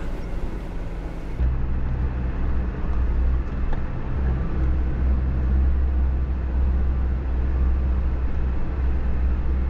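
Isuzu NPS 75-155 4x4 truck's diesel engine and drivetrain running steadily as the truck drives a rocky 4x4 track: a loud, low drone that starts about a second and a half in, after quieter driving noise.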